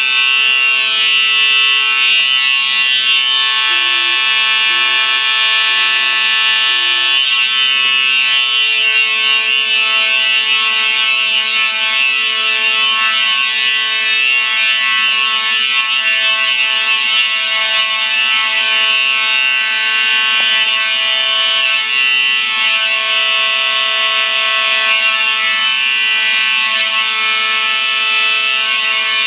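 Several fire alarm notification appliances on a Simplex system sounding together without a break during an alarm test, a loud, dense, high-pitched ringing. A lower tone pulses about once a second for the first several seconds.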